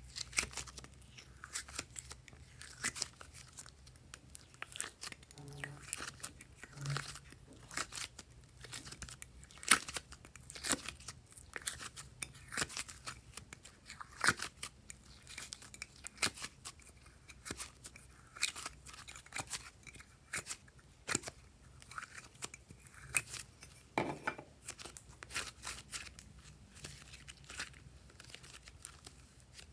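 Thick, sticky slime being squeezed, scraped out of a plastic container and stretched by hand, giving a continuous run of irregular sticky clicks, pops and crackles.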